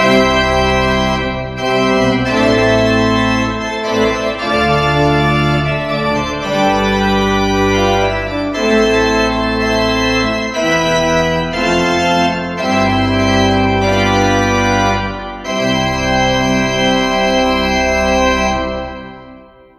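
Church pipe organ played at full organ (tutti), all stops drawn with the manuals coupled and the pedal sounding: a loud series of sustained chords over deep bass notes. The last chord is released near the end and dies away in the church's reverberation.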